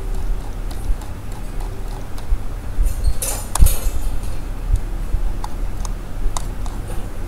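Scattered light clicks of a computer mouse and its scroll wheel over a steady low electrical hum, with a brief louder rustle a little past three seconds in.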